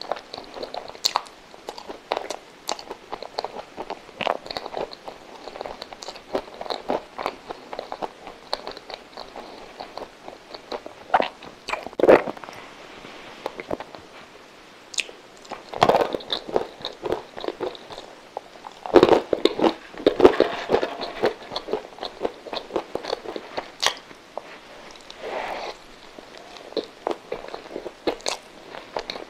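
Close-miked eating sounds: a person biting and chewing soft coconut-coated milk custard rolls topped with nuts, with many small wet mouth clicks. There are a few louder bites about 12, 16 and 20 seconds in.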